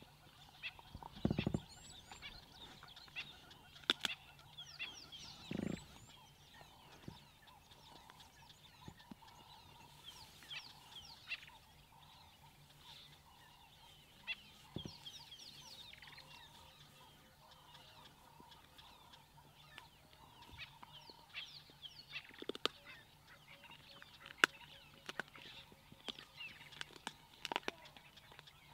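Faint bird calls in the bush: clusters of quick downward-sweeping chirps repeating through, with scattered sharp clicks and two low thumps in the first six seconds.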